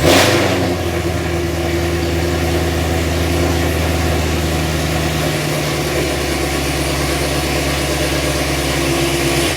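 C7 Corvette's 6.2-litre V8 catching with a brief rev, then idling steadily. The idle settles slightly lower about five seconds in, and the sound stops suddenly near the end.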